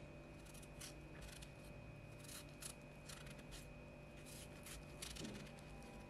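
Kitchen knife slicing a raw zucchini held in the hand: faint, irregular crisp cuts, roughly one every half second, over a faint steady hum.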